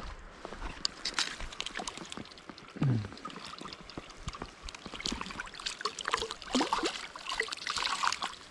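Creek water trickling and splashing, with scattered small splashes and knocks.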